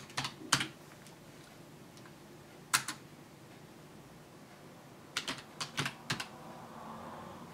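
Typing on a computer keyboard in short bursts of clicking keystrokes: a couple near the start, a single key about three seconds in, then a quick run of about six keys past five seconds in.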